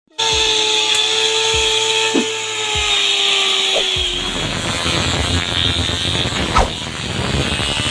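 Electric angle grinder rigged as a wheeled grass cutter, running at speed and cutting grass. Its motor whine sags slightly as it works, and about four seconds in the sound turns rougher and noisier, with scattered knocks.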